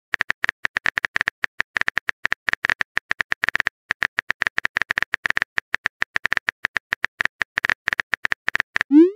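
Texting-app keyboard typing sound effect: rapid synthetic key clicks, several a second, each with a short beep, as a message is typed out. Near the end comes a quick rising swoop as the message is sent.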